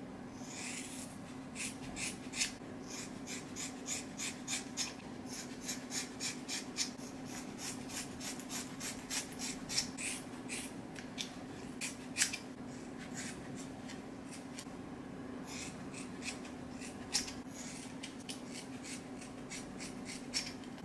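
Scissors snipping through long hair in a run of quick, crisp snips, about two or three a second. The snips pause for a few seconds about two-thirds of the way through, then start again.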